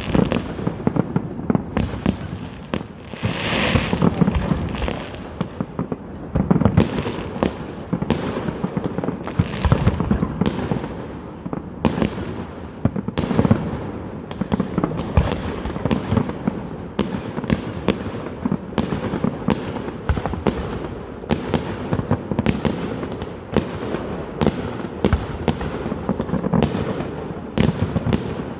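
Fireworks display: a continuous barrage of sharp bangs, several a second, with a rushing hiss a few seconds in.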